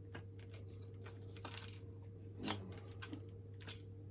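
Light plastic clicks and taps from a hairdryer's plastic housing being handled and prised apart: scattered small clicks with a louder knock about two and a half seconds in, over a steady low hum.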